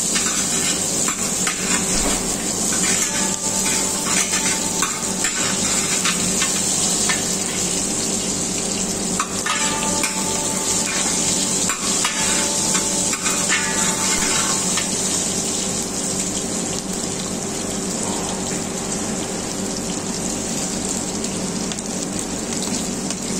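Small whole onions, dried red chillies and whole seeds frying in hot mustard oil with a steady sizzle, while a steel ladle stirs and scrapes against the metal pan.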